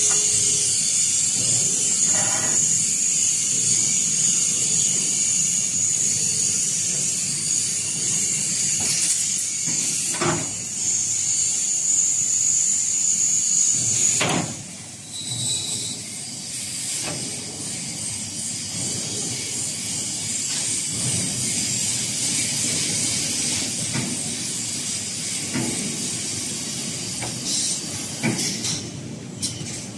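A steel grating welding machine's feeder running, with a steady high hiss. Sharp metallic knocks come about ten and fourteen seconds in; at the second knock the hiss drops away, and lower machine clatter with occasional knocks carries on.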